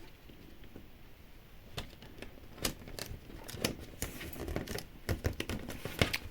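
Light clicks and taps of small pieces of a miniature toy kit being handled and fitted together, sparse at first and coming more often in the second half.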